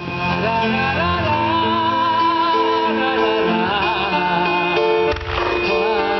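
Music for a fireworks display: a sung melody with vibrato over sustained instrumental notes. A brief burst of noise cuts across it about five seconds in.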